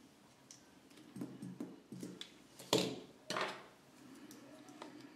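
Small clicks and scrapes of a precision screwdriver fastening a screw in a TS100 soldering iron's metal case, with two louder clacks of the hard parts being handled about halfway through.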